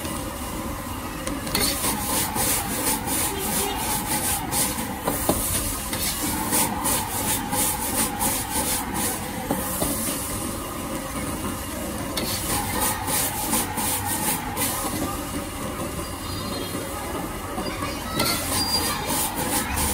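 Stir-frying noodles in a wok: a metal ladle scrapes and clatters against the wok in repeated bouts as the noodles are tossed, over the steady hiss of a high-flame gas burner.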